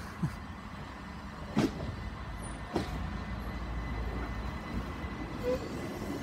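Class 377 Electrostar electric multiple unit pulling slowly out of a station: a steady low rumble with a few sharp clicks.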